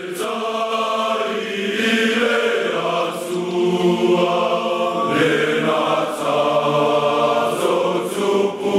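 Group of young men singing together as a choir, holding long notes in phrases that break about every three seconds.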